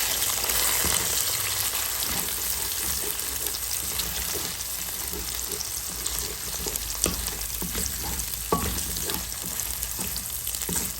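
Chicken pieces, eggs and garlic sizzling in hot oil in a frying pan while being stirred, with a steady hiss and occasional clicks and scrapes of the utensil against the pan.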